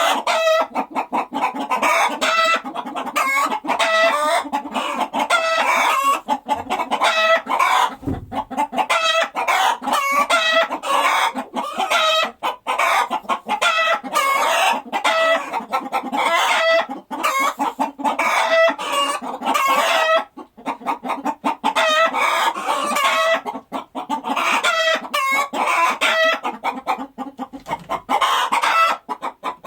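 A flock of chickens clucking without pause, many short calls overlapping.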